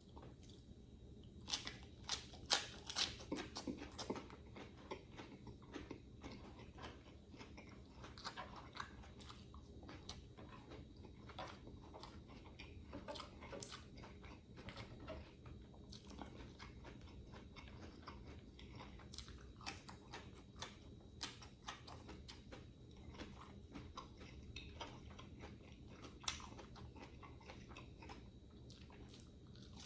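A person chewing and biting into food, with many short crisp crunches, a dense cluster of them a couple of seconds in; the meal is grilled lemongrass chicken with rice and raw vegetables such as romaine lettuce and cucumber.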